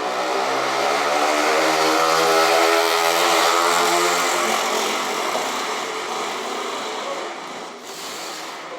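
A motor vehicle engine passing by: a steady engine hum that swells over the first few seconds and then slowly fades.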